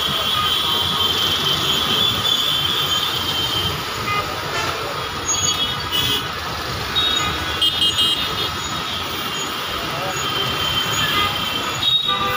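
Traffic noise of a jammed city road: engines running steadily, with vehicle horns sounding now and then and voices in the background.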